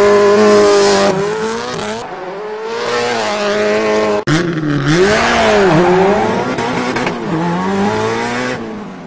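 A car engine revving, its pitch rising and falling, with tyres squealing. It breaks off sharply about four seconds in, then carries on and fades out near the end.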